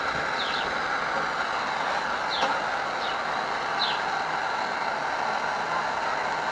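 A steady rushing hiss, with a few short, high, downward chirps over it, typical of a small bird.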